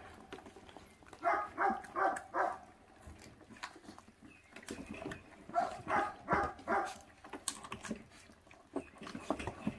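Feral-dog puppies growling in two short runs of about four growls each while they feed on raw meat, with scattered clicks of chewing and paws on the crate between them.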